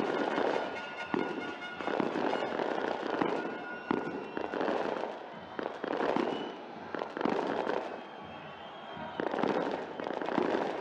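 Firecrackers going off in a football stadium: repeated sharp bangs about a second apart over the swelling noise of the crowd, with music playing underneath.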